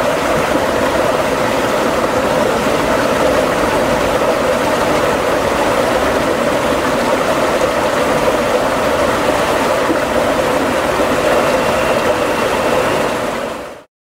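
Shallow water running and splashing over rocks in a landscaped stream: a steady rushing that fades out just before the end.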